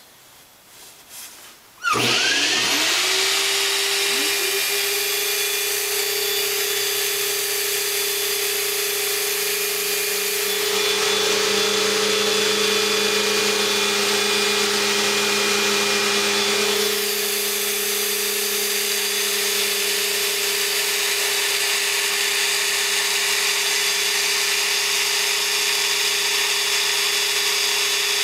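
Flow bench motor spinning up about two seconds in, then running steadily as it draws air through the Studebaker cylinder head's port with the valve open 0.100 inch, at about 28 inches of test depression. It runs a little louder for several seconds in the middle.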